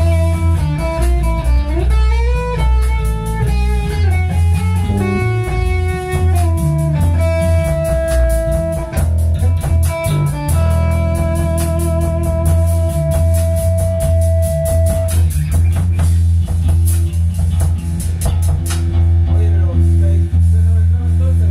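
Improvised rock jam: guitar playing a lead line with pitch bends, over bass guitar and drum kit. About seven seconds in, the guitar holds one long sustained note for several seconds.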